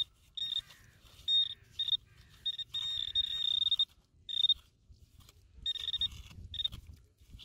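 Metal detecting pinpointer probe beeping as it is pushed around in wet beach sand: a high-pitched beep sounding in short, irregular bursts, with one longer held tone about three seconds in, signalling metal close to its tip.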